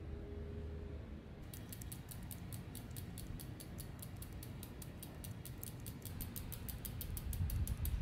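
Rear freewheel of a Specialized Crossroads hybrid bicycle ticking as the rear wheel spins freely, an even run of about six or seven clicks a second starting about a second and a half in.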